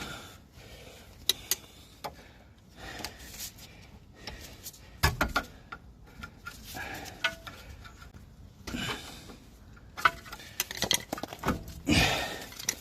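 Hand tools clinking, tapping and scraping against metal suspension parts, a screwdriver working at a rubber boot on a car's lower ball joint. The clinks and knocks are irregular, with a few sharper strikes about five, ten and twelve seconds in.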